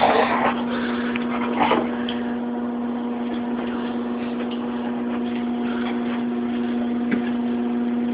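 A steady, even hum, with a few brief scuffs near the start and a faint tap later on.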